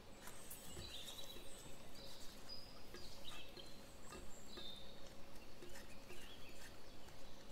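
Faint birds chirping, with light ticks and clinks of a wire whisk stirring kiwi purée in a stainless-steel saucepan.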